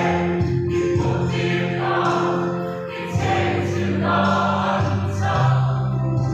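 Mixed choir of women's and men's voices singing in harmony, holding sustained notes as the chords change.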